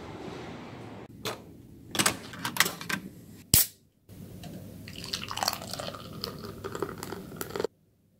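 A few clicks of handling, then a sharp snap about three and a half seconds in, followed by beer being poured into a glass for about three and a half seconds, ending abruptly.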